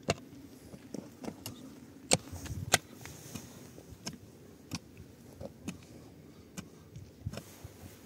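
Pickaxe striking and scraping dry, stony earth while digging a hole: a string of sharp, irregular knocks, about one or two a second, the loudest two a little after two seconds in.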